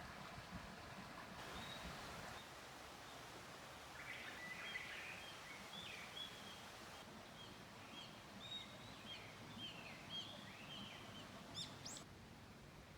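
Faint outdoor ambience with a small bird chirping many short, high, curved notes for several seconds, ending in one quick rising whistle.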